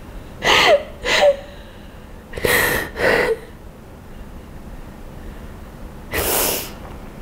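A woman crying: sharp, gasping, sniffling breaths. There are two quick pairs in the first few seconds, the first pair with a short whimpering catch in the voice, and one longer breath about six seconds in.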